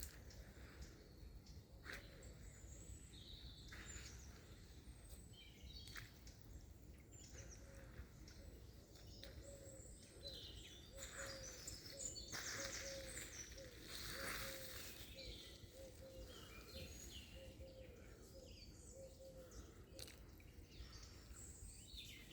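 Wild birds calling and chirping in scattered short high notes and trills over a faint low rumble. Through the middle a soft low note repeats about once a second.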